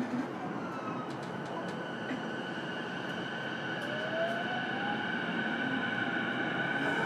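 Onboard sound of a JR East E233-8000 series electric train, heard from inside motor car MoHa E233-8223: the traction inverter whines with steady high tones over the running noise. From about four seconds in, a rising tone climbs as the train accelerates, and the sound slowly grows louder.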